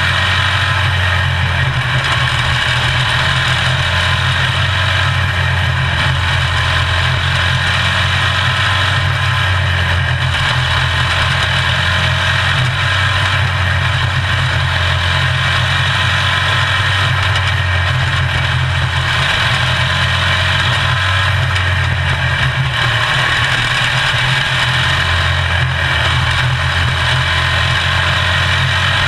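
Onboard sound of a quarter midget race car's small engine running steadily at racing speed, with slight dips now and then as the throttle eases.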